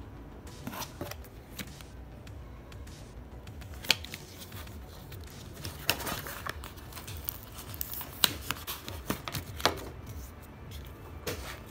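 Cardboard card folder and a payment card handled by hand: paper rustling and sliding, with scattered sharp clicks and taps as the card is slid out of its slot and turned over.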